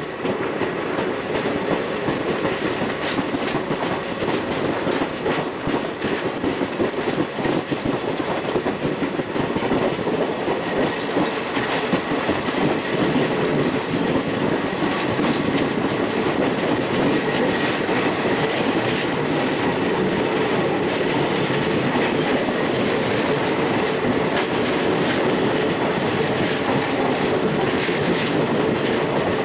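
Express train coaches running at speed, heard from an open door: a steady rumble of steel wheels on the track with irregular clacks over rail joints. A faint steady wheel squeal runs through as the train rounds a curve.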